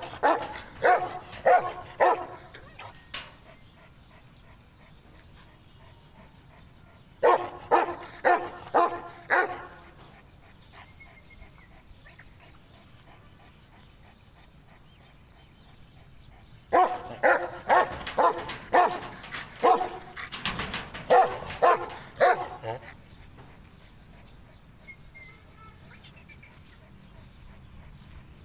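Bully kutta (Kohati gultair) dog barking in three runs of short, sharp barks: about six at the start, five more about seven seconds in, and a longer run of about a dozen from around seventeen seconds, with quiet stretches between.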